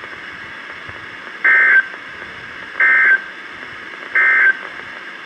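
Three short bursts of Emergency Alert System data tones, the End of Message code that closes a NOAA Weather Radio alert. Each is a rapid two-tone data screech about a third of a second long, and they come about a second and a half apart over steady radio hiss.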